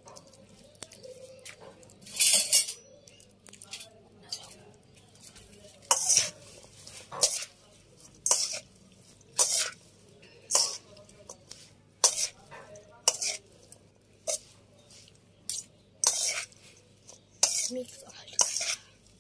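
Spoon clinking and scraping against a stainless-steel bowl as a dressed salad is tossed, a short sharp clink or scrape about once a second.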